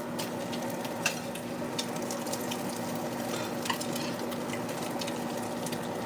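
Food frying in a pan: a steady sizzle with scattered small pops and crackles, over a steady low hum.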